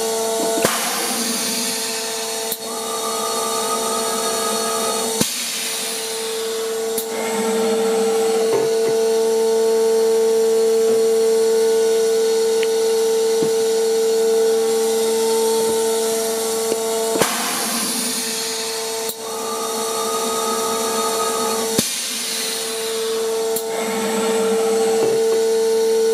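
Automatic volumetric dosing and filling machine working through repeated fill cycles: a steady machine hum runs underneath, broken by short bursts of hiss and sharp clicks that come back about every 12 seconds.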